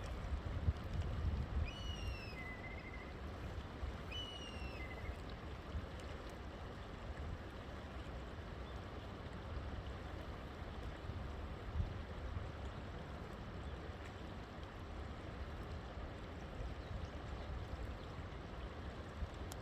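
A river flowing steadily with a deep rumble, and a bird giving short calls that slide in pitch about two and four seconds in.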